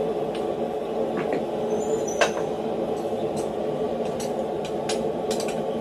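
Light metallic clinks of blacksmith tongs and a hot steel hammer head on a steel bolster plate, with one sharper ringing clink about two seconds in. A steady background hum runs under it.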